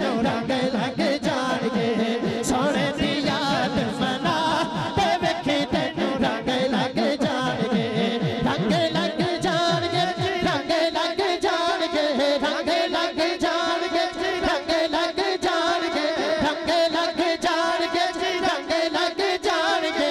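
A man singing a Punjabi naat into a microphone, in long, wavering drawn-out notes.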